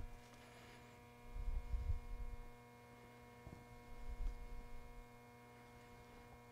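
Faint steady electrical mains hum, with a few soft low bumps and rubs, about one and a half seconds in and again near four seconds, as a squeegee is worked over film.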